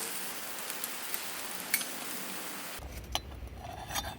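A steady hiss. About three seconds in it gives way abruptly to a quieter background with a few light clinks of camp cookware.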